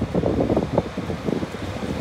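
Wind buffeting the microphone in irregular gusts, over the low rumble of an approaching Northern Class 195 diesel multiple unit.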